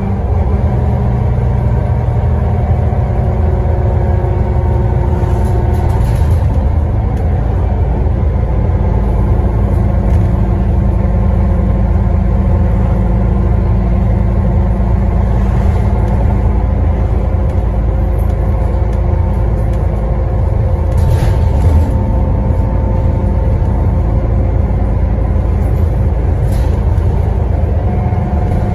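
Scania N94UD double-decker bus driven hard, heard from inside the passenger saloon. Diesel engine and road rumble lie under a loud whine from the rear differential, and the whine's pitch shifts a few times as the bus changes speed.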